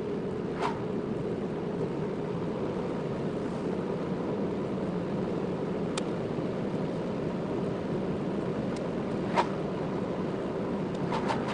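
Steady road and engine noise of a car driving, heard from inside the cabin, with a few short sharp knocks; the loudest comes about nine seconds in.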